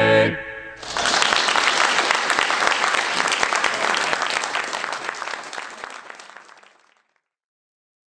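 A male chorus's final held chord cuts off, then an audience applauds for about six seconds, the clapping gradually fading out.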